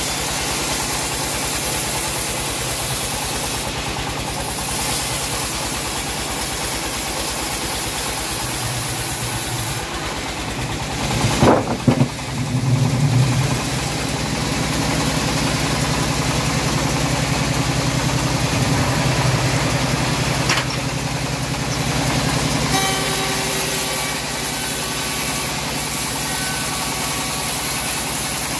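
Home-built bandsaw mill running with a steady low hum as its band blade rips a teak log lengthways. The sound surges loudly for about two seconds a little before the middle, and a thin whine joins in near the end.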